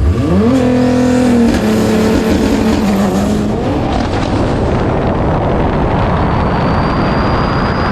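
A car engine revs up and is held at a steady high pitch for about three seconds, then gives way to a loud, steady rushing noise. Near the end a faint high whine creeps upward.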